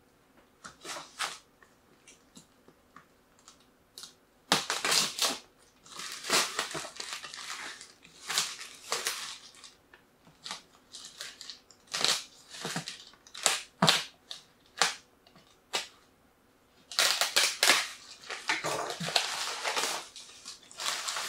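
A cardboard parcel being opened and its contents unwrapped by hand: irregular bursts of crinkling, rustling and tearing plastic film and cardboard, with a few small clicks before it gets going and a longer stretch of crinkling near the end.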